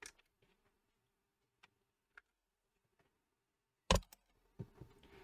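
Faint scattered clicks, then one sharp, loud click about four seconds in followed by a few more clicks and handling noise: power leads being hooked up to a car amplifier on the bench. A faint steady hum runs underneath.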